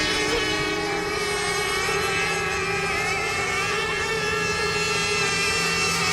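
Several radio-controlled racing boats' motors running at speed together, a steady high whine made of many overlapping pitches that waver slightly.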